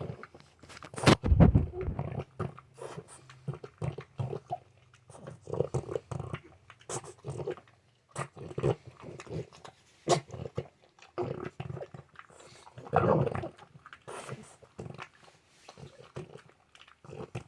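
French bulldog making pig-like grunting noises in short, irregular bursts, with a louder bout about thirteen seconds in.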